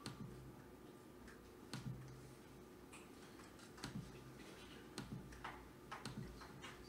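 Laptop keys being pressed: faint, scattered single clicks about a second apart, irregular, over a low steady hum.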